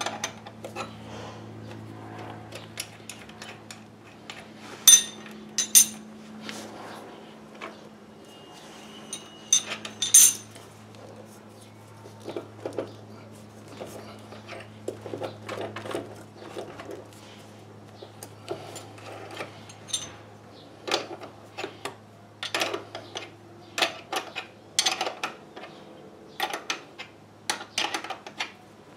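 Metal clicks and clinks of nuts and a wrench being worked on the threaded height-adjusting bolt of an industrial sewing machine's clutch motor, with a few sharper clanks about five and ten seconds in. A steady low hum runs underneath.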